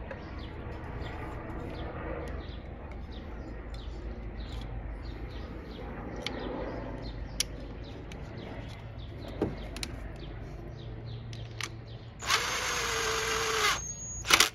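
Faint clicks and handling noise as an ignition coil is pressed into place. Near the end a DeWalt cordless driver with a 5/16-inch socket runs steadily for about a second and a half, driving in the coil's hold-down screw. A brief sharp burst follows just before the end.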